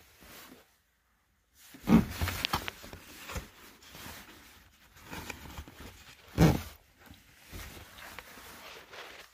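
Plastic door-sill trim being handled and worked loose: two loud knocks, about two seconds in and again after six seconds, with rubbing and small plastic clicks between.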